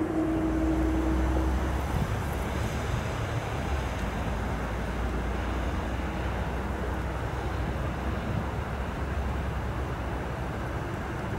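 Steady low rumble of an approaching train, an EP20 electric locomotive with a double-deck passenger train. A held tone carried over from before ends about two seconds in.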